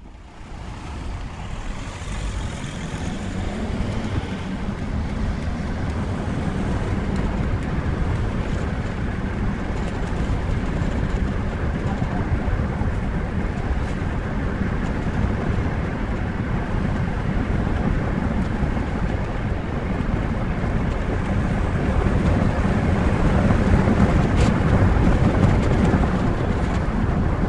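Steady rumbling noise like a vehicle running, fading in over the first second and holding steady throughout.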